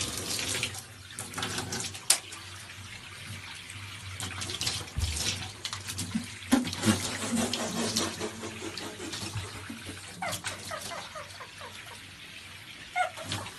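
Running water, as from a tap, with scattered knocks and splashes, and a few short high-pitched calls after about ten seconds and again near the end.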